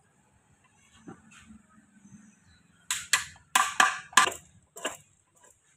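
Sharp metal clinks and knocks, five or six in about two seconds starting around three seconds in, as steel gears, a small bearing and a plate are fitted by hand into an open Sonalika 750 tractor gearbox casing.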